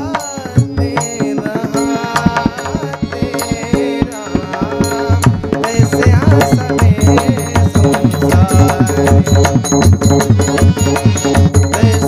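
Devotional kirtan music: a male voice sings a melody, backed by a harmonium and a pakhawaj drum. About halfway through, the drumming grows denser and louder.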